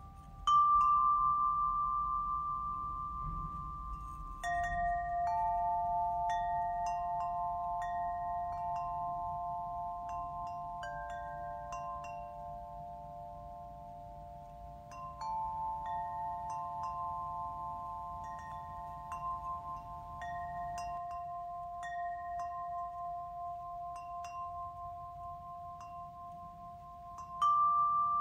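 Tuned metal chimes struck one after another, each note ringing on and slowly fading so the notes overlap into a sustained chord. The loudest strikes come about half a second in and again near the end.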